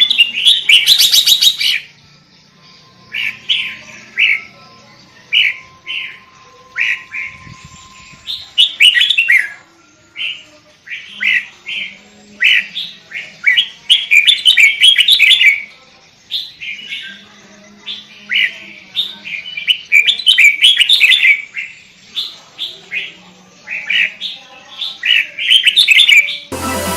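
Sooty-headed bulbul (kutilang) singing busily: clusters of short, loud whistled notes separated by brief pauses, over and over. Music cuts in just before the end.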